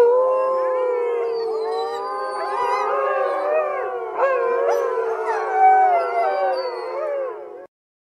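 A pack of wolves howling in chorus, many voices overlapping and gliding up and down in pitch, with some higher thin calls above them. The chorus cuts off abruptly near the end.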